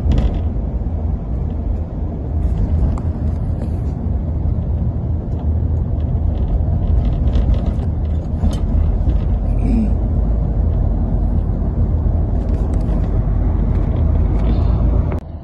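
Steady low rumble of a vehicle driving along a city street, engine and road noise, which drops away abruptly just before the end.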